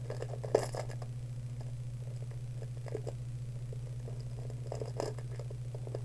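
Trading cards being handled: a few brief rustles and taps, the sharpest about half a second in, over a steady low hum.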